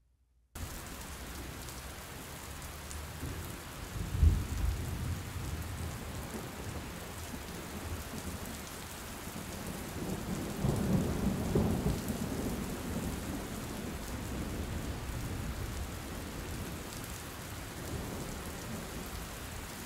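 Steady rain, starting about half a second in, with low rolls of thunder about four seconds in and again from about ten to twelve seconds.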